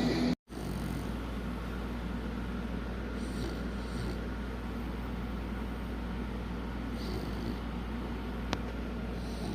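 A sleeping dog snoring faintly, one slow breath about every three to four seconds, over a steady low hum. A single sharp click sounds near the end.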